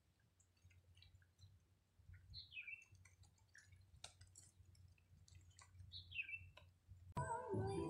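Faint outdoor ambience with scattered small clicks and two short falling bird chirps about four seconds apart. Background music starts abruptly near the end and is the loudest sound.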